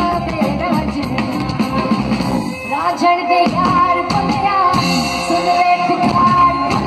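A woman singing live into a microphone with a rock band accompaniment of drum kit and electric guitar, heard from within the crowd at a concert.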